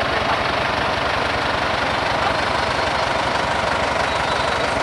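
Diesel engine of a tractor or heavy truck running steadily at idle, with an even low throb.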